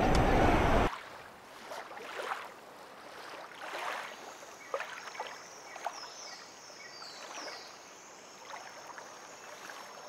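Shallow river water lapping softly with small, scattered splashes, after a loud rushing noise cuts off suddenly about a second in. Faint high thin tones sound in the middle.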